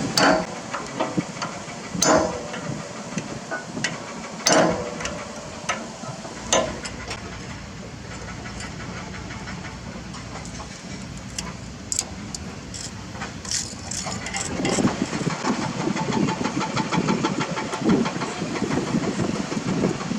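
Heavy diesel machinery engine running, with a few sharp metallic clanks in the first seven seconds. The engine grows louder and rougher about two-thirds of the way through.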